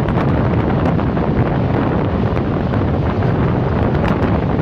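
Wind buffeting the microphone held out at the window of a passenger train running at speed, with the train's steady running noise underneath.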